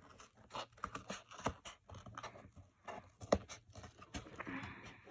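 Scattered clicks, taps and scrapes of a cardboard shoebox and its tube being handled and adjusted, with one sharper tap about three seconds in and a brief rustle near the end.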